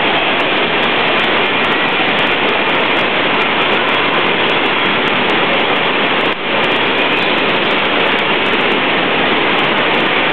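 Steady, loud rush of water pumped in a thin sheet over an artificial sheet-wave surf ride, dipping briefly about six seconds in.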